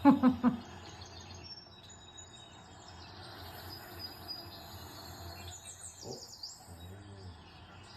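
Soundtrack of a game video for cats: chirping birdsong over a steady cricket-like insect trill. A brief loud voice sound opens it, and a run of quick high bird chirps comes around six seconds in.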